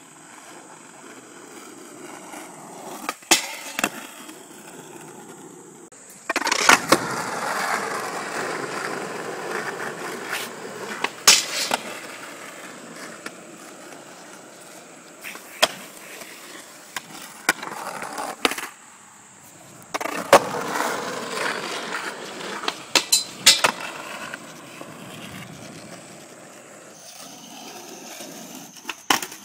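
Skateboard wheels rolling on asphalt in stretches of several seconds, broken by several sharp clacks of the board striking the pavement.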